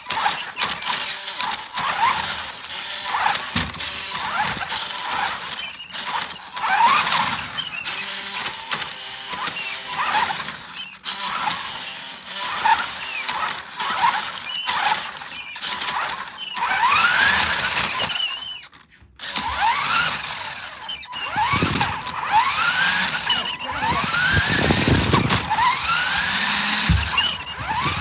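Small battery-electric RC car driving, its motor and gears whining up in pitch again and again as it accelerates, with rattling and squealing from the drivetrain. The sound cuts out briefly about two-thirds of the way through.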